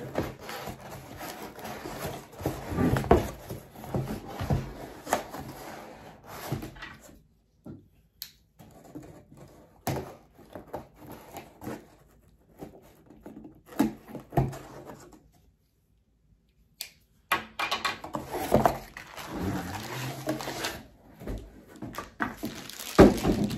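A long cardboard shipping box being handled and opened: irregular scraping, rustling and knocking of cardboard, with a knife cutting through the packing tape. Near the end a plastic-wrapped tube is pulled out of the box with a rustle and a knock.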